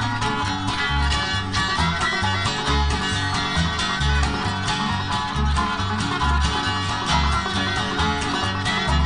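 Bluegrass-style background music with quick picked string notes over a steady bass beat.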